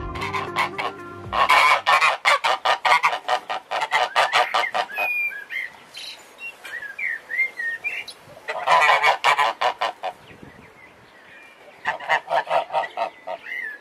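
Domestic geese honking in quick runs of repeated calls, three bouts: one starting about a second in and lasting several seconds, another around the middle and a third near the end. Between the bouts come thin, high chirping calls.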